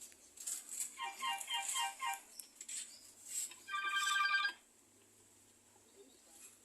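Nokia 105 (2022) feature phone playing short snatches of its ringtones: a quickly repeating run of beeping notes about a second in, then a higher, rapidly pulsing tone about four seconds in that cuts off after under a second, with scattered clicks in between.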